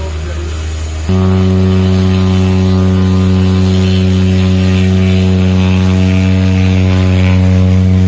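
Cessna 208B Caravan's single turboprop engine running with a steady propeller drone, jumping up in loudness about a second in as power is added and the plane starts to move on the grass strip.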